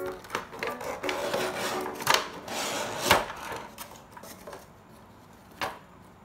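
Cardboard box and plastic bag rubbing and rustling as a small handheld fan is slid out of its packaging. There are sharp knocks about two and three seconds in and another near the end.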